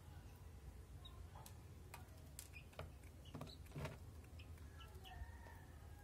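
Near silence: a faint steady low hum with a few sharp clicks, scattered through by short, faint high chirps.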